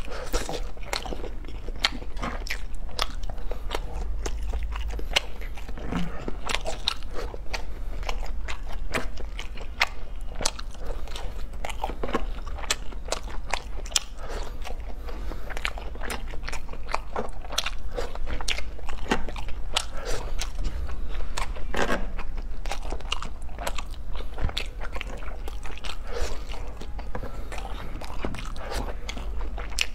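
A person biting and chewing food at close range: a dense run of sharp, irregular clicks, several a second, as the white stick-shaped pieces are bitten off and chewed.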